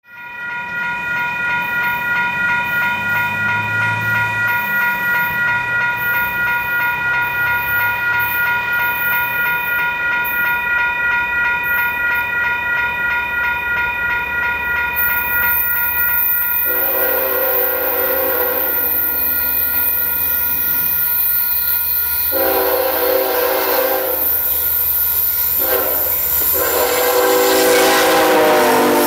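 A bell rings steadily while an approaching freight train's diesel locomotives build from a low rumble. About halfway through, the lead Union Pacific GE ES44AC sounds three long horn blasts, the last one still going as the locomotives pass close by.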